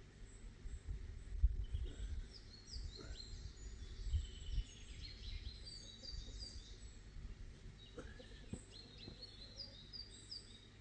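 Small birds chirping and calling outdoors, many short high notes, some slurring downward, coming thickest around the middle and again near the end. A low uneven rumble runs underneath, strongest in the first half.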